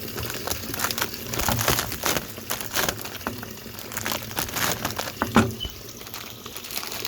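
Kitchen handling noises: crinkling and rustling, with scattered clicks and knocks and one sharper knock about five seconds in.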